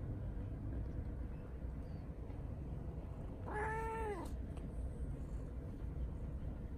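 An orange tabby cat gives a single short meow about halfway through, rising then falling in pitch.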